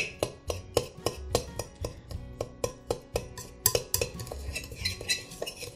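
A metal utensil stirring brown and white sugar with spices in a mixing bowl, clinking against the bowl several times a second.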